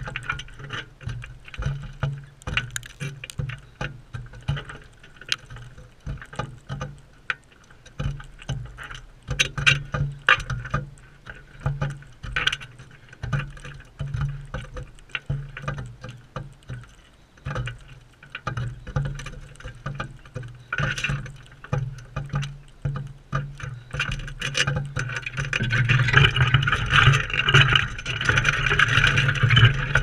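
Galahs feeding right beside the camera: a steady run of irregular clicks and taps from beaks cracking seed and knocking on the wooden rail, over a low rumble that comes and goes. It grows louder and busier near the end.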